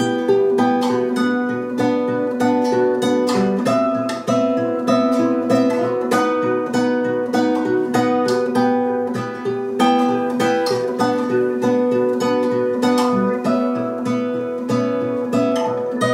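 Acoustic guitar played live, a quick run of plucked notes repeating a pattern.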